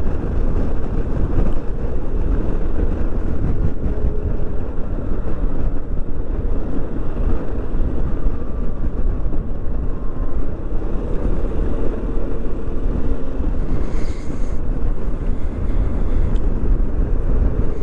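Steady wind rush and road noise while riding a Yamaha XMAX 300 scooter, with its single-cylinder engine running faintly underneath at a steady pace.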